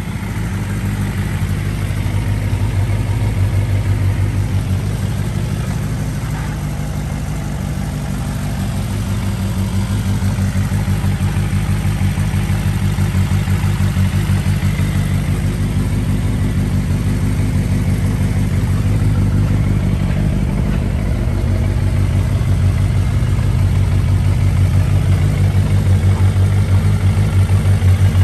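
Suzuki Bandit 400V's inline-four engine idling steadily through a Yoshimura aftermarket muffler.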